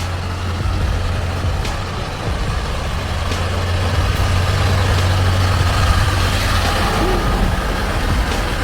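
Loaded logging truck's engine running with a steady low drone, growing somewhat louder through the middle, as it works its way up a winding mountain road.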